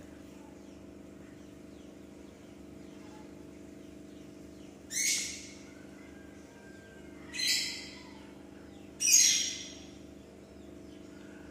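A bird calls three times, loud and high-pitched. Each call is short and fades quickly, the first about five seconds in and the last two about a second and a half apart. A steady low electrical hum, typical of aquarium pump or filter equipment, runs underneath.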